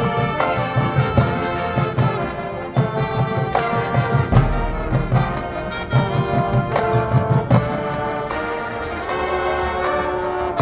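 Marching band playing: brass section sounding loud accented chords over low drum hits.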